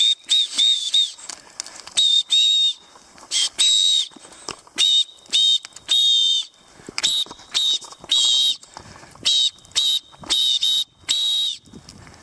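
Plastic safety whistle blown in many short, shrill blasts in irregular runs. It is being used to make noise and warn off a nearby black bear.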